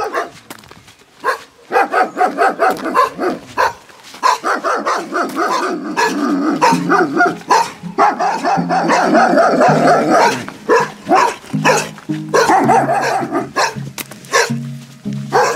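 Two dogs barking repeatedly and fast behind a gate, barks tumbling over one another almost without pause.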